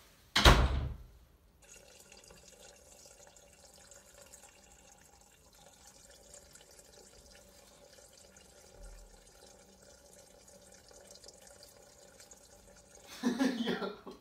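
A person urinating out of a window: a faint, steady trickle of liquid for most of the stretch. A loud thump comes about half a second in, and a short loud burst of noise near the end.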